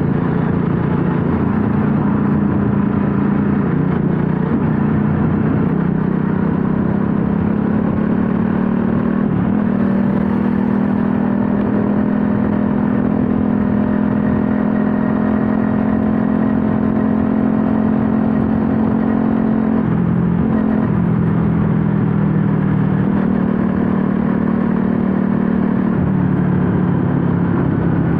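Bajaj Pulsar NS200's single-cylinder engine running steadily under way. Its note steps up about ten seconds in and drops again around twenty seconds in, with throttle changes.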